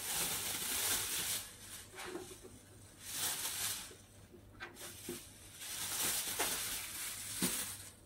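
Thin plastic bag rustling and crinkling in several bursts as it is handled and cut porcini mushroom pieces are packed into it.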